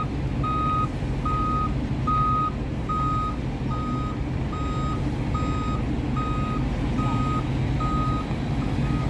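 Reversing alarm of a Liebherr LTM 1500 mobile crane beeping steadily, one high beep a little more than once a second, over the low steady running of the crane's engine as it backs up slowly.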